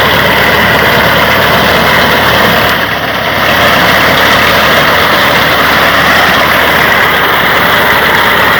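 Tractor engine running steadily, loud and close.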